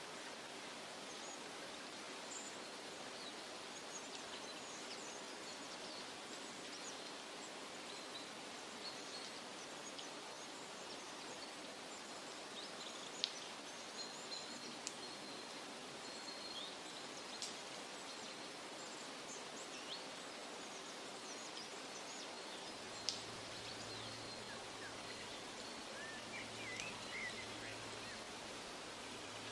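Forest ambience: a steady even hiss with scattered faint, high bird chirps, and a low hum that comes in about three quarters of the way through.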